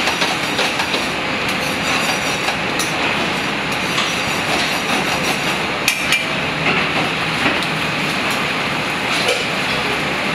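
Steady rushing noise of a commercial kitchen's gas range and extractor hood, with a few sharp clinks of metal pans and utensils.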